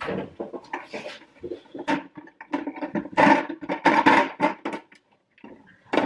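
Kitchen items being handled on a counter: a run of irregular knocks, clatters and rustles, busiest past the middle, then a brief lull near the end.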